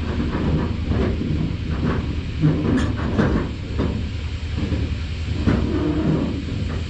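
An engine running steadily with irregular knocks and clanks over it, the sharpest about halfway through and again near the end.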